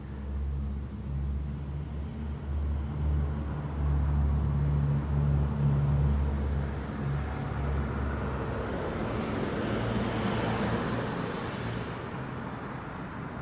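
Street traffic: a motor vehicle's engine hums low and steady, louder about halfway through. Then a vehicle passes, its noise swelling to a peak and fading away.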